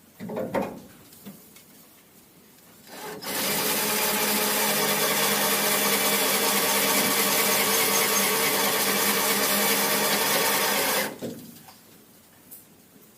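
Cordless power drill running steadily for about eight seconds, drilling into the rusted door lock's screws, then stopping abruptly. A brief scrape or knock comes shortly before it starts.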